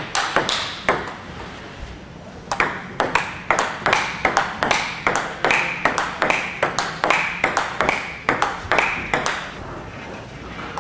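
Table tennis rally: a celluloid ball struck back and forth by rubber-faced bats and bouncing on the table, several quick pings a second. It pauses briefly about a second in and again near the end.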